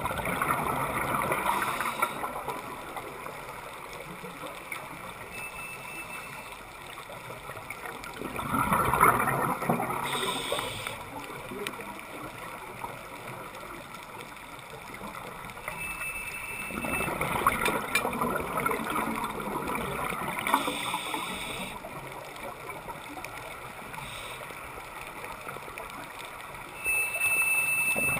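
Scuba diver's exhaled bubbles rushing out of the regulator underwater, in bursts of a few seconds about every eight seconds, with quieter breathing and water noise between.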